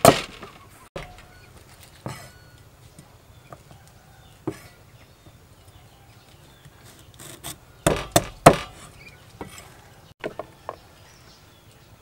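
Cleaver chopping ginger root on a thick round wooden chopping block: sharp single chops spaced a second or more apart, then a quick run of several chops about eight seconds in, the loudest of them near its end.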